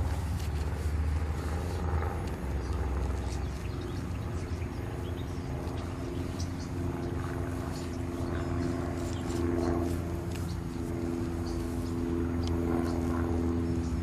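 An engine running steadily, a low rumble with a droning note that shifts in pitch about ten seconds in.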